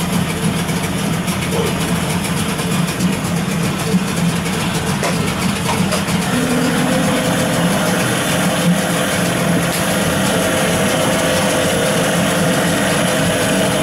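A brand-new CG Marine 9.9 hp outboard motor running steadily at a raised idle during its break-in run. Its note changes slightly about six seconds in, when a higher tone joins, as the engine cover is lifted off.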